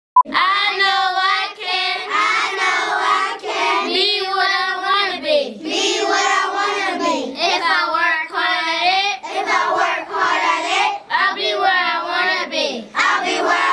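A group of young children singing together in phrases of a second or two, with short breaks between them.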